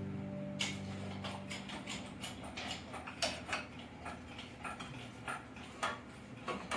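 Irregular metallic clicks and ticks, a few a second, from hands-on work on the tractor. A low steady hum fades out about a second and a half in.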